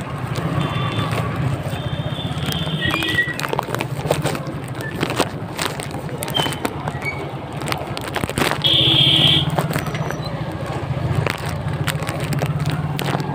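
Busy street-market ambience: a steady engine hum under scattered voices and clatter, with a short high-pitched horn-like beep about nine seconds in.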